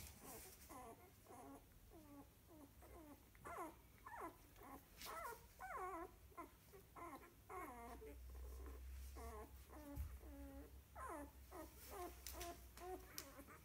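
Two-week-old golden retriever puppies whimpering and squeaking faintly: a steady string of short, high calls that fall in pitch, about two or three a second, from several pups at once.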